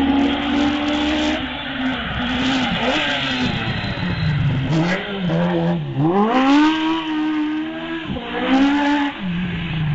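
Legends race car's Yamaha four-cylinder motorcycle engine at full effort on a hillclimb. The engine note falls as the car slows into a hairpin, then revs climb steeply out of the bend about six seconds in, with a quick gear change near the end.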